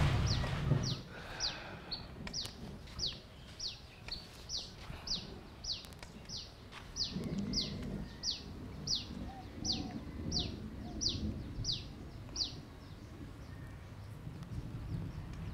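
A small bird repeating a short, sharp, falling whistled note about one and a half times a second, some twenty times, stopping a few seconds before the end. A low rumble fades out in the first second.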